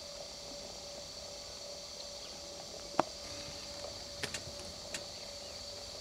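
Steady faint hiss with a thin steady hum, broken by one sharp click about halfway through and a few lighter clicks and taps near the end.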